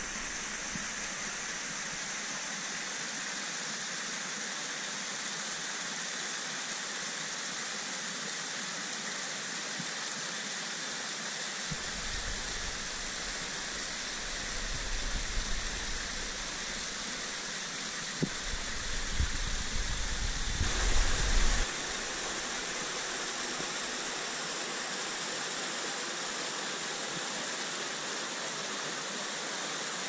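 Small forest waterfall and stream rushing over rocks: a steady, even hiss of falling water. A low rumble comes and goes between about twelve and twenty-two seconds in.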